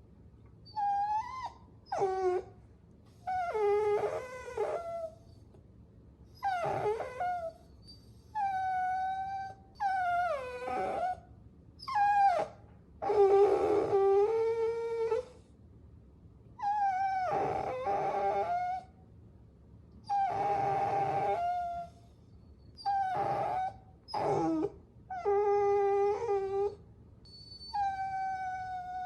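Puppies whining: a string of about fifteen high-pitched whines with short pauses between them, many sliding up or down in pitch. A few are rougher, howl-like cries.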